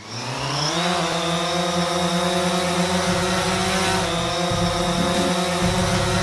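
Motor sound of a drone's rotors spinning up: the pitch rises over the first second, then holds as a steady whine over a low rumble.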